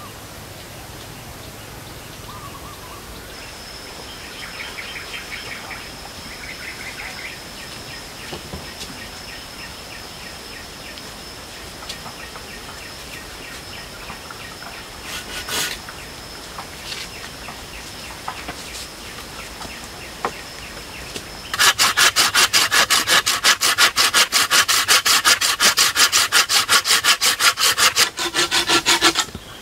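Hand saw cutting through wood with quick, even back-and-forth strokes, about four a second, starting late on and stopping just before the end. Before it, quieter surroundings with a thin steady high whine and a few light knocks of wood.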